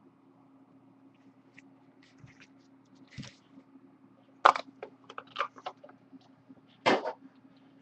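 Trading cards and their pack being handled: scattered clicks and rustles, with two louder crackling snaps about four and a half and seven seconds in as the tightly packed cards are worked out of the pack.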